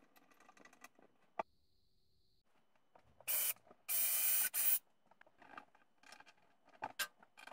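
Milwaukee cordless drill running in two short bursts about three and four seconds in, the second lasting about a second, drilling a hole in a cabinet door for a knob. Light clicks and taps of handling around it.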